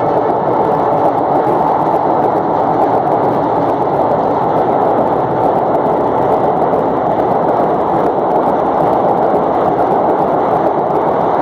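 Passenger coaches of an Indian Railways express train passing at speed close by: a loud, steady rushing noise of wheels on rail and moving air, with no clear rhythm of wheel clicks.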